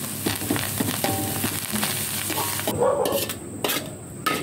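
Stir-frying in a wok: oil sizzling and a metal spatula scraping and tossing greens and scrambled egg. It stops abruptly about two-thirds of the way in, after which a dog barks briefly.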